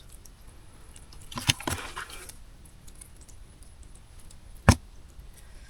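Brief splashing and squelching in shallow muddy water as fish are grabbed by hand, about a second and a half in, then a single sharp knock near the end.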